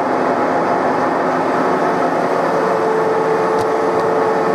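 Metal lathe running and turning a long, thin metal shaft supported by a follower rest, a loud steady machining noise. A steady whine joins in about three seconds in.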